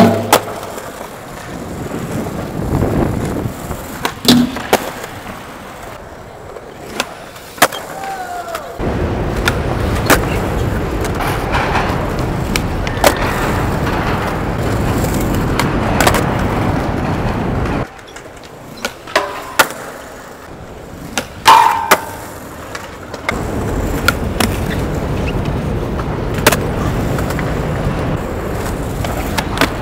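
Skateboard wheels rolling over a concrete skatepark, with sharp clacks of the board hitting a ledge and the ground, the loudest one right at the start. The rolling noise grows louder and steadier about a third of the way in, drops off briefly past the middle, then resumes.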